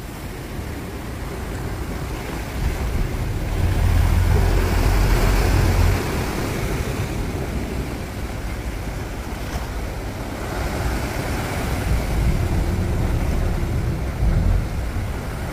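Sea waves breaking and washing over a rocky shore, with wind on the microphone and a small boat's engine underneath; the low rumble is heaviest from about four to six seconds in.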